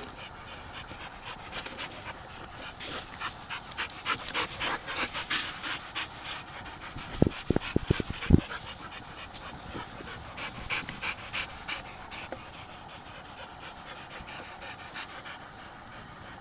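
Dogs panting in quick, rhythmic breaths, heaviest in the first half and again a little later. About halfway through comes a quick cluster of sharp knocks, the loudest sounds.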